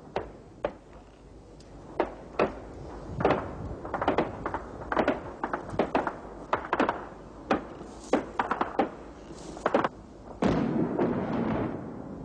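Battle sounds: scattered gunshots, irregular single shots and short clusters, then a louder blast about ten seconds in that rumbles on for over a second.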